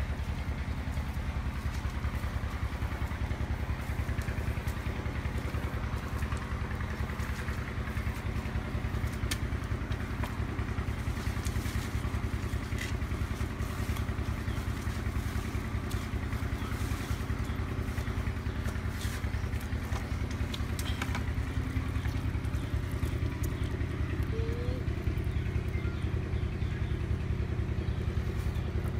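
Steady low drone of an engine running evenly, with a few faint clicks and rustles over it.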